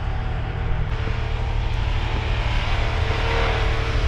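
Off-road vehicle driving, its engine running steadily under a dense low rumble.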